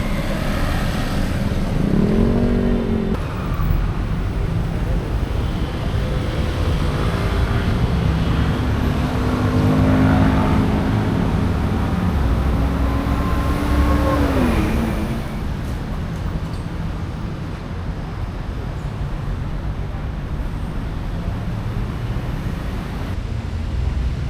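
Street traffic: a steady rumble of motor vehicles, with engines revving up about two seconds in and again around ten seconds, then one dropping away in pitch as it passes, after which the traffic settles to a lower hum.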